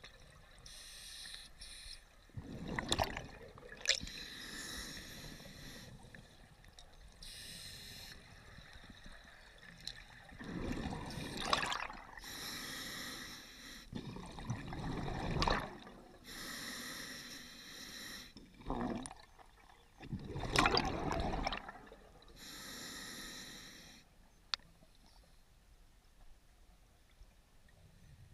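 Scuba diver breathing through a regulator underwater: hissing inhalations every four to five seconds, each followed by a louder rumble of exhaust bubbles. The breathing stops near the end, leaving a single sharp click.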